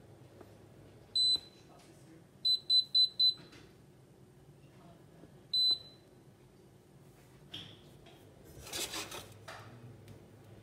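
KitchenAid KICU509XBL induction cooktop's touch controls beeping as they are pressed while the cooktop is showing its F47 error: one beep, then four quick beeps, then another single beep. A brief rustling noise comes near the end.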